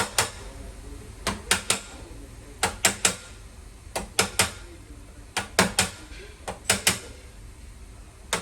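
Panel-beating on a car's front wing: sharp metal strikes against a dolly held behind the panel, in quick bursts of two to four taps about every second and a half, to raise low spots in the dent.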